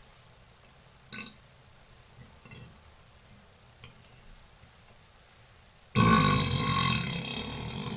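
A woman's long, loud burp starting about six seconds in, lasting about two seconds and fading away. A faint click comes about a second in.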